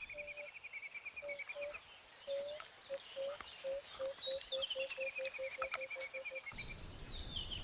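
Wild animal calls: a low piping note repeated faster and faster that stops about six and a half seconds in, over a falling run of short high chirps heard twice and a fast, high insect-like ticking.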